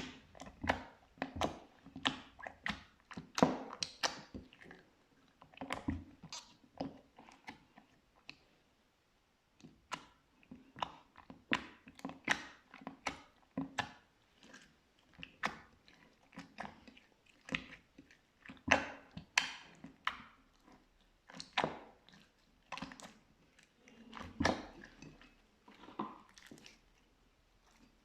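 Blue slime being pressed and poked by hand, making quick irregular wet clicks and pops, with a short pause partway through.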